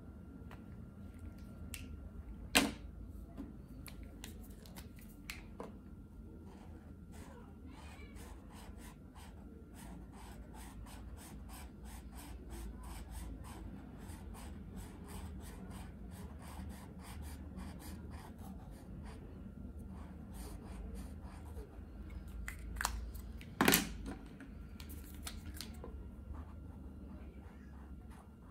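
Posca paint marker nib scratching and tapping on paper in quick short strokes, a long run of light ticks. Two louder clicks stand out, one a couple of seconds in and one near the end.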